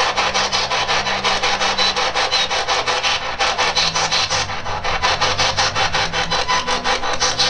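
Spirit box scanning the FM band through its speaker: a fast, even chopping of radio static and station fragments, about eight chops a second.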